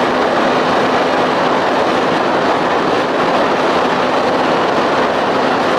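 Evinrude outboard motor, converted from 25 hp to 30–35 hp, running steadily at high throttle on a new 13¼-inch, 17-pitch prop. It is a loud, even running noise with a faint steady tone under it.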